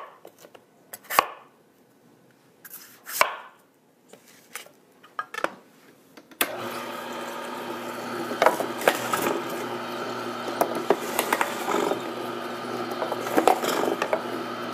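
A knife chopping green apples into chunks on a cutting board, in scattered strokes. About six seconds in, a Tribest Green Star Elite twin-gear juicer's motor starts and runs with a steady hum, with irregular crackles and clicks over it.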